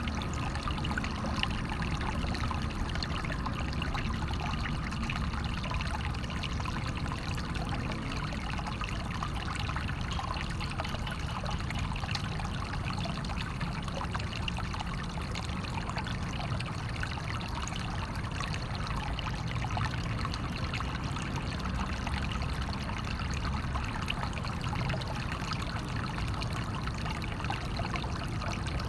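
Natural water flowing steadily, with a continuous trickling and splashing rush.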